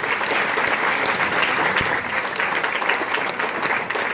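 A crowd applauding and clapping steadily, with a few scattered cheers.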